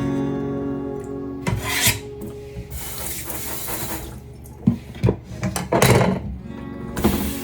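Food-preparation sounds: irregular scraping and rubbing, as on a wooden cutting board, with a few sharp knocks, over soft acoustic guitar music.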